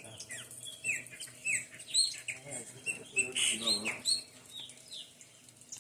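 Birds chirping: a rapid series of short, quickly falling chirps, busiest around the middle.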